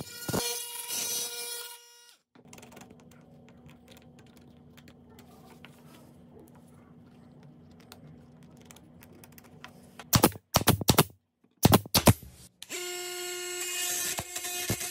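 Oscillating multi-tool blade buzzing as it cuts into softwood, stopping about two seconds in; a long quiet stretch with a faint low hum follows. Around ten to twelve seconds in comes a cluster of loud sharp knocks, then the multi-tool starts again at a lower pitch, its blade cutting against steel nails.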